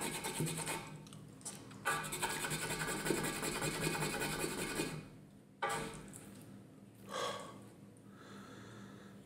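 Wooden spoon scraping and squishing through mayonnaise-coated ribeye pieces on a slate board, a rasping rub in two spells, the longer from about two to five seconds in. A brief wet mouth sound follows about seven seconds in.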